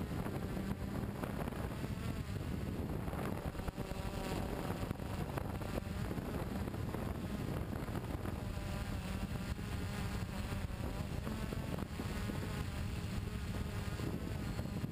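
Electric radio-controlled aircraft carrying the camera, its motor and rotors buzzing steadily with wavering pitch, with wind on the microphone.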